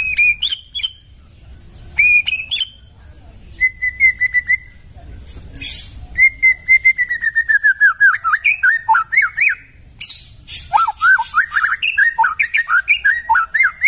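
White-rumped shama (murai batu) singing: clear whistled notes and a steady trill, then two long phrases of fast repeated notes that sweep up and down in pitch.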